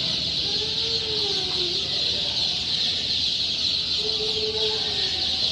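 Hundreds of young chicks peeping together: a dense, steady, high-pitched chorus with no pauses.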